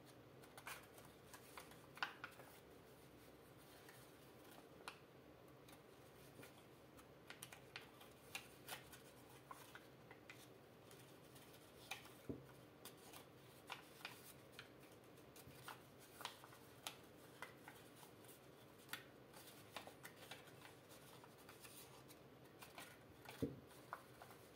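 A sheet of origami paper being folded and creased by hand: faint, scattered crinkles and crisp clicks, with a couple of slightly heavier taps.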